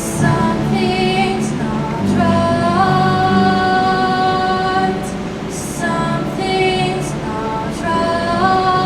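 A song with a woman singing long held notes that slide up in pitch, over instrumental accompaniment.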